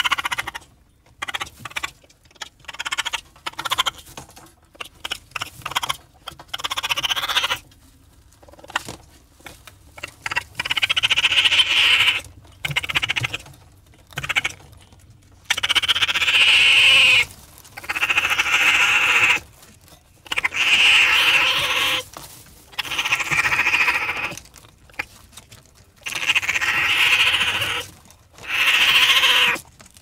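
Raccoon calling: a quick series of short calls, then, from about ten seconds in, longer calls of a second or two each, repeated with short pauses between.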